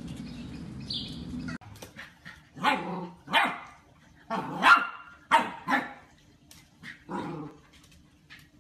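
Golden retriever puppy barking in a run of short, high yips, about seven barks over some five seconds, the loudest in the middle.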